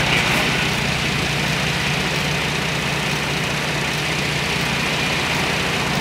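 2012 Chevy Traverse's 3.6-litre V6 idling steadily with the air conditioning switched on.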